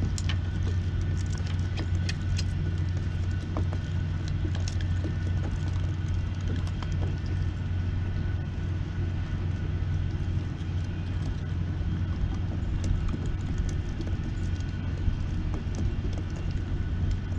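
Steady low mechanical rumble with a faint steady whine above it, with scattered light clicks over the top.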